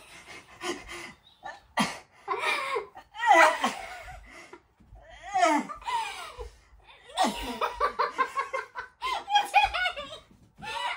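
People laughing in repeated bursts, some of it high-pitched.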